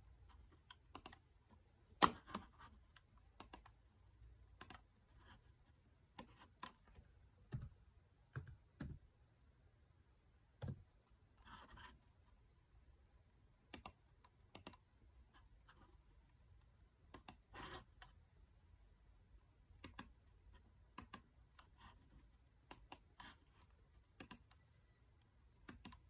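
Dell laptop keyboard and touchpad clicking: scattered single clicks, about one or two a second, the loudest about two seconds in, with two short soft hisses around the middle.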